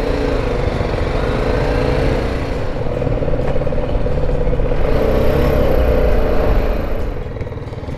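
BMW G310GS motorcycle's single-cylinder engine running under way, with wind rumble, pulling harder and louder toward about six seconds and easing off about seven seconds in.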